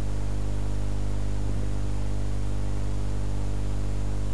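Steady low electrical mains hum with its overtones and a layer of hiss from the recording setup, with nothing else happening.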